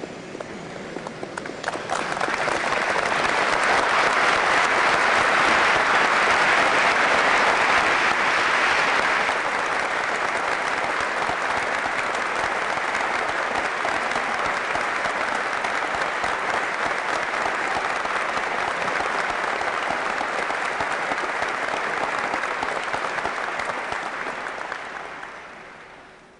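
A large assembly applauding. A few scattered claps swell into full applause about two seconds in, loudest for the next several seconds, then holding steady before dying away near the end.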